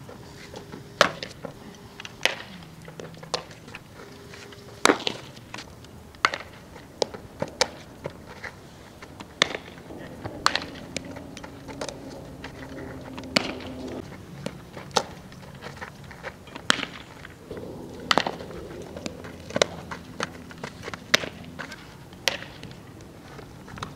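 Softballs being hit with a bat and smacking into leather gloves: a series of sharp cracks and pops, about one every second or so.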